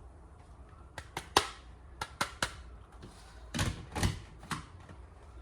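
Handling noise: a quick run of three sharp clicks about a second in, three more about two seconds in, then a few duller knocks and thumps.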